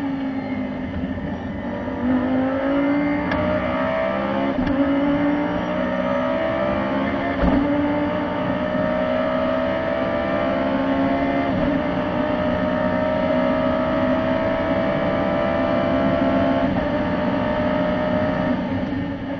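Audi R8 LMS race car's V10 engine heard from inside the car under full acceleration, the pitch climbing through each gear and dropping back at four quick upshifts, from third to seventh gear. The sound fades out near the end.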